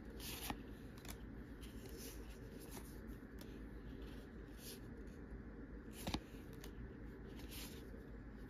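Trading cards being flipped through in the hand, each card slid behind the next with a soft papery flick or rustle every second or so, and a sharper snap about six seconds in.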